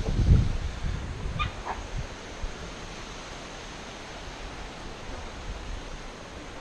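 Wind buffeting the microphone with handling rumble for about the first second, then a steady outdoor hiss. Two brief high-pitched calls come about a second and a half in.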